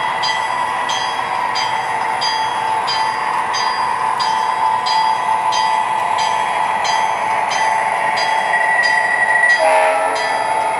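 The onboard sound system of an MTH CSX SD40-2 model diesel locomotive plays a steady diesel engine drone, with a bell ringing about twice a second. A short horn note sounds about ten seconds in.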